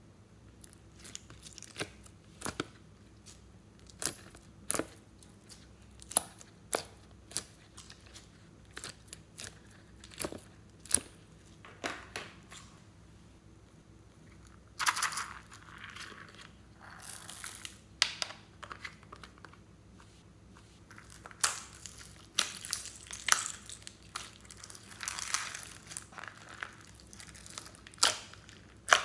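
Slime being handled in a plastic tray, along with plastic moulds and a squeeze bottle: a string of sharp clicks and taps through the first half, then longer crackling stretches as slime is squeezed out and pulled.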